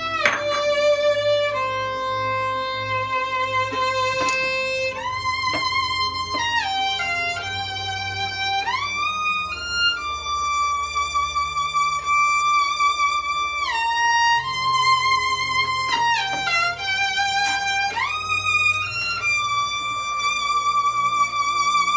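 Solo acoustic violin, bowed, playing long sustained notes with vibrato and sliding up and down in pitch between them.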